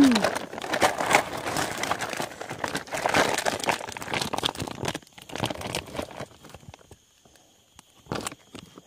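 Woven plastic sack crinkling and rustling as it is handled and opened, dense for about the first five seconds, then one more brief rustle near the end.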